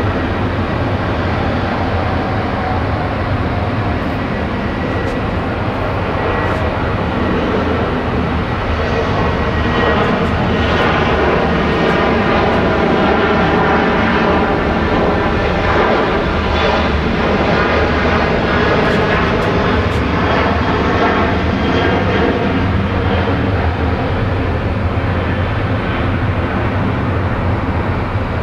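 Jet airliner's turbofan engines at takeoff thrust during the takeoff roll: a steady, loud rushing noise with a whining tone over it, swelling somewhat in the middle as the aircraft passes.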